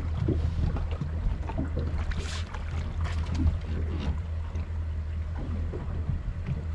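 Twin Mercury Verado 300 V8 outboards idling with a steady low hum, with water slapping and sloshing along the hull and a brief splash about two seconds in.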